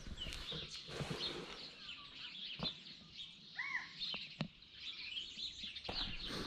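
Small birds chirping and twittering, with one clear arched call a little past the middle and a few sharp clicks.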